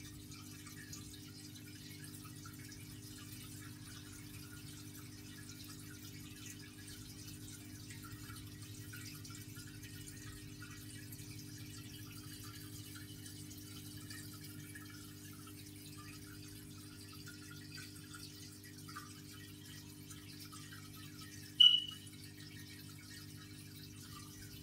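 Aquarium pump running in a goldfish tank: a steady low hum with a faint trickle of water and bubbling. About three-quarters of the way through, a short, sharp high-pitched beep.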